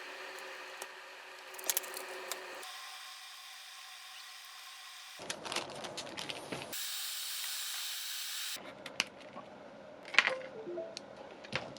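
Heat gun blowing hot air with a steady hiss, cutting in and out in short stretches, loudest about seven seconds in. Scattered clicks and taps of handling the keyboard follow near the end.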